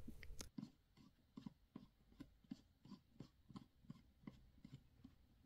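Faint, regular clicking, about three clicks a second, as a screwdriver turns a brass jet into the body of a Vespa PX SI carburetor, screwing it in gently.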